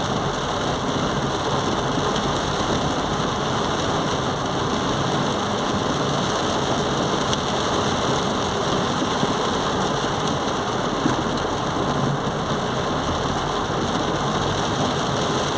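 Heavy rain falling on a car's roof and windshield, heard from inside the car as a steady, even hiss.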